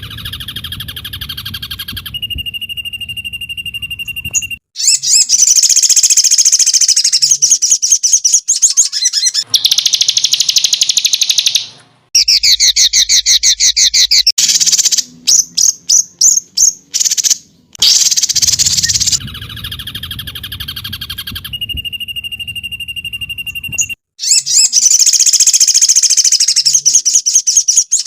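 Songbird master recording used to train cage birds: loud rapid trills, fast chirp series and a held high whistle in bursts broken by short pauses, the same sequence repeating about every 18 seconds as a loop.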